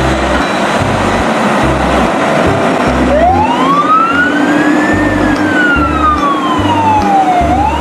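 A siren wailing over a steady loud rush of noise with low pulsing underneath. About three seconds in, it rises in one slow sweep, falls away, and starts to climb again near the end.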